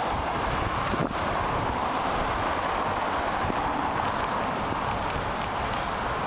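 Wind buffeting a helmet-mounted camera's microphone while cycling, over a steady hiss of road and traffic noise.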